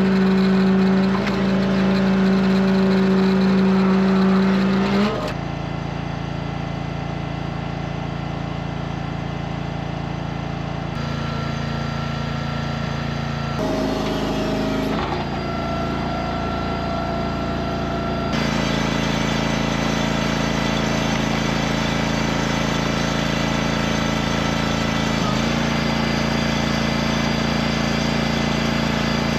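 An engine running steadily at a held speed, its pitch and tone shifting abruptly several times.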